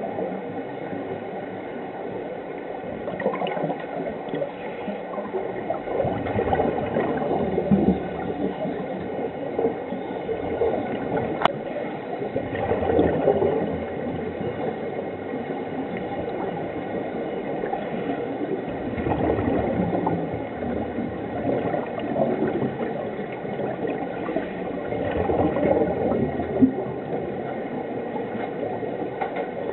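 Underwater gurgling of scuba regulator exhaust bubbles, swelling louder every several seconds with each exhaled breath.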